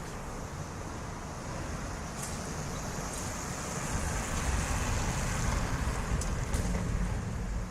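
Street traffic with cars and a light rail train passing. A low rumble swells from about halfway in, with a faint high hiss over the middle and a couple of brief clicks near the end.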